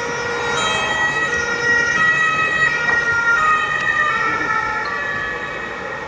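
Ambulance siren sound effect played through a hall's loudspeakers, its held tones shifting in pitch every second or so. It swells at first and fades toward the end.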